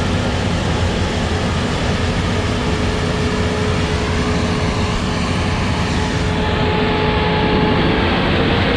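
Tractor engine running steadily, with a steady whine over the low engine noise that shifts slightly in pitch near the end.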